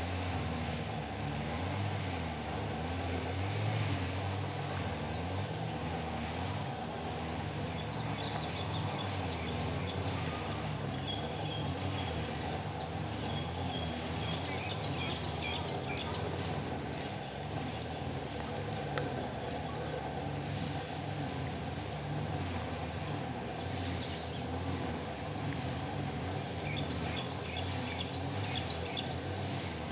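Line trimmer buzzing in the background, its pitch wavering up and down. A bird gives short runs of rapid high chirps three times: about 8 s in, around 15 s in, and near the end.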